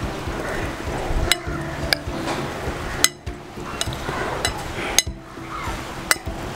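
Metal utensil clinking against a pan while beaten rice (chiura) is stirred into a hot egg and vegetable mixture: about seven sharp clinks at irregular intervals over a steady rustle of stirring.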